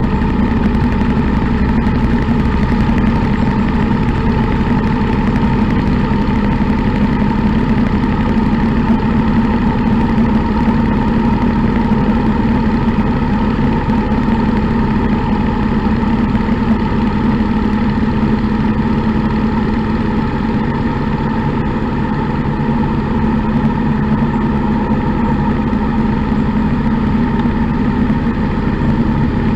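Motorcycle engine running at a steady cruise, heard from a camera mounted on the bike, with a constant, even drone.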